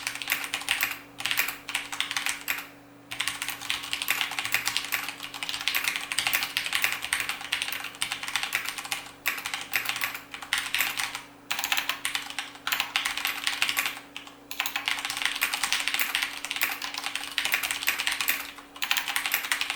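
Continuous typing on a mechanical keyboard with tactile switches: quick runs of keystrokes broken by brief pauses every couple of seconds.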